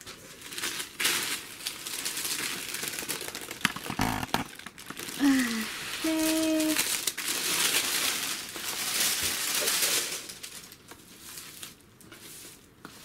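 Packaging being handled and unwrapped by hand, with repeated crinkling and rustling and a single knock about four seconds in.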